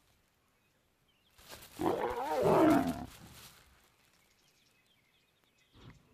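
A lion gives one harsh snarl, about two seconds long, starting about a second and a half in.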